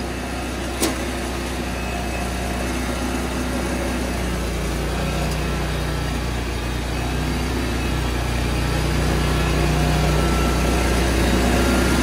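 Engine of a Vigorun MTSK1000 remote-control flail mower running steadily just after starting, growing a little louder in the second half. A single sharp click about a second in is the engine hood being shut.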